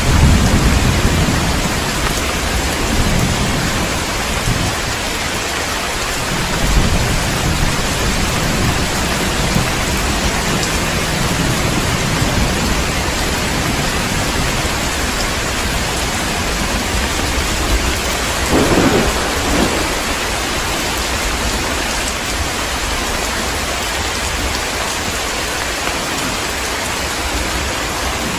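Heavy rain falling steadily, with thunder rumbling at the very start and again a few seconds in, and a sharper clap of thunder about two-thirds of the way through.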